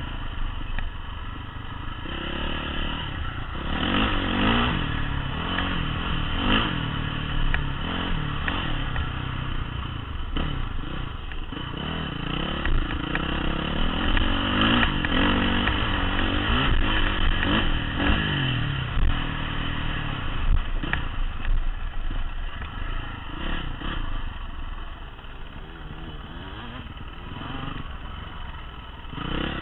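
Honda CRF450 four-stroke single-cylinder dirt bike engine revving up and down over and over as it is ridden across rough, stony ground, with scattered knocks and clatter. It drops back, quieter, for a few seconds near the end.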